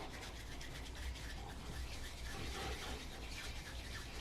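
Hands rolling a small piece of polymer clay into a ball, a faint, quick, repeated rubbing of skin on clay.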